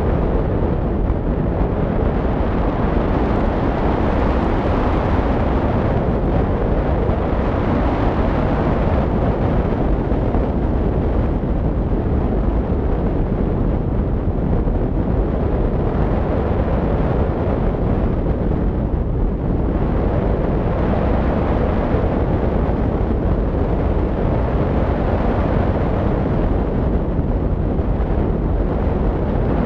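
Loud, steady wind rushing and buffeting over the microphone of a camera mounted on a hang glider in flight.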